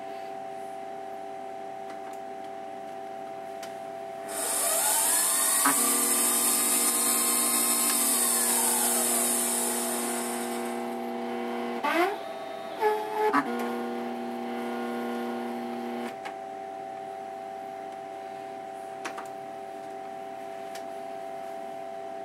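Emco Compact 5 CNC lathe running a program. About four seconds in, the spindle motor starts with a hiss and a rising whine, runs for a few seconds, then winds down. About a second later the stepper motors give a short whirr that glides up and then steps between pitches. A steady electrical hum from the machine lies under it all.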